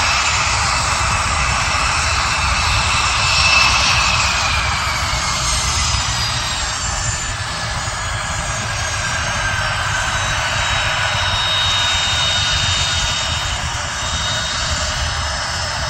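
Honeywell TFE731 turbofan engines of a Raytheon Hawker 800XP business jet running, a high whine that slides slowly down in pitch over a steady low rumble, with a steady high tone coming in during the second half.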